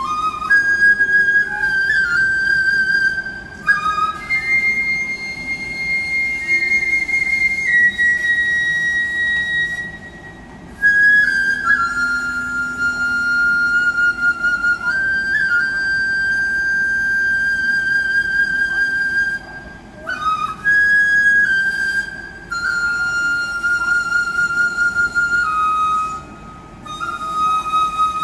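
Solo Korean bamboo transverse flute playing a slow melody of high, held notes with a wavering vibrato, broken by a few short pauses for breath.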